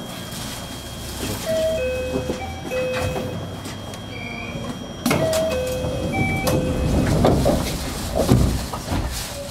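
A short electronic chime of a few notes plays twice on a train stopped at a station, and from about halfway through there are knocks and a rumble as the train's sliding doors shut.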